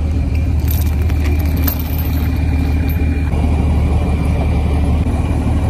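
Vehicle engine idling steadily with a deep, even hum.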